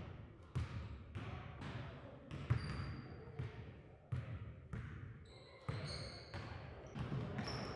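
Basketballs bouncing on a hardwood gym floor, sharp thuds about twice a second from several balls, echoing in the large hall. Sneaker squeaks join in the second half.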